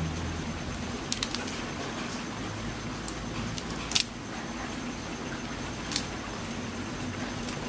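Steady hiss of a gas burner under a pot of simmering bamboo-shoot curry, with a few sharp clicks: a pair about a second in, the loudest about four seconds in, and one more about six seconds in.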